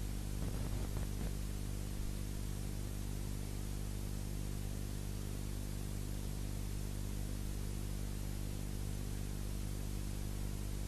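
Steady hiss with a low mains hum from a blank, unrecorded stretch of VHS tape playing back.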